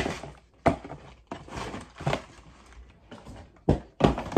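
Cardboard sneaker boxes and their lids being handled: about half a dozen sharp knocks as boxes and lids are set down, with rustling in between.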